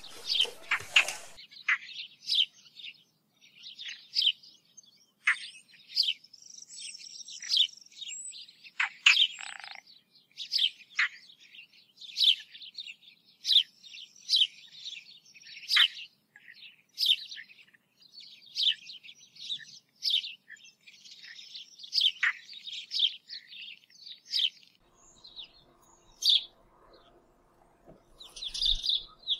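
Small songbirds chirping and trilling in quick, repeated short calls, several a second, with pauses between phrases. A faint steady hum joins near the end.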